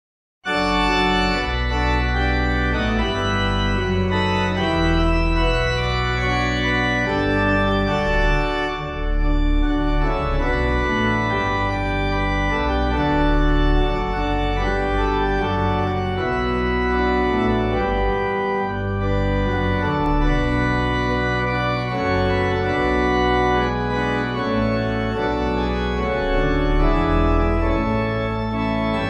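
Organ playing a hymn tune in held chords over a deep bass line, starting abruptly about half a second in.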